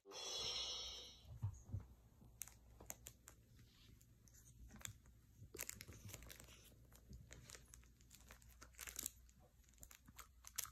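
Faint crinkling, crackling and small clicks as a squirrel monkey paws at plastic and crinkly plush baby toys. A short rushing noise, the loudest sound here, comes in the first second or so.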